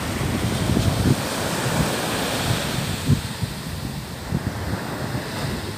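Surf washing onto a sandy beach, with wind gusting and buffeting the microphone.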